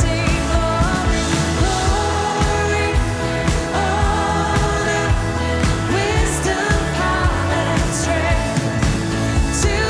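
Live worship band music with a steady beat under sustained chords, and a woman's lead vocal holding long, wavering sung notes.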